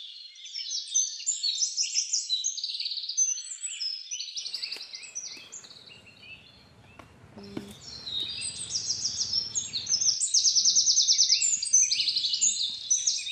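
Dense chorus of many birds chirping and singing at once, full of fast, rapidly repeated trills. For a few seconds in the middle a faint low rumble of noise lies under the birdsong.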